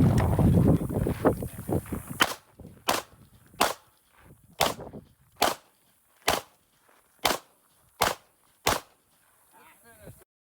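A Glock 19 9mm pistol firing aimed shots at a steady pace, nine sharp cracks about one every 0.8 seconds, after about two seconds of loud, dense noise. The sound cuts off abruptly near the end.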